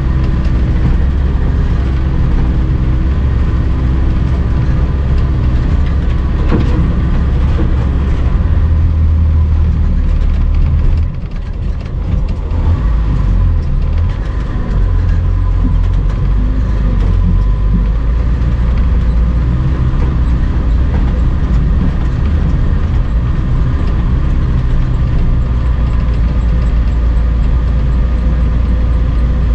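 Engine of a homemade all-terrain vehicle running steadily under heavy load at low speed, dragging about half a ton of rails along the ground in front-wheel drive. It dips briefly about eleven seconds in.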